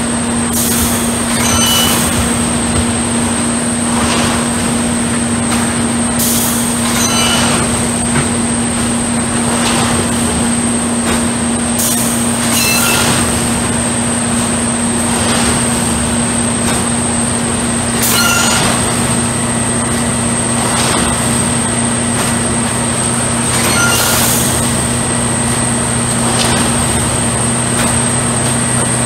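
Track tamping machine at work: its engine and hydraulics run with a steady low drone and a constant high whine. A short hissing, clattering burst comes about every five to six seconds as it repeats its work cycle.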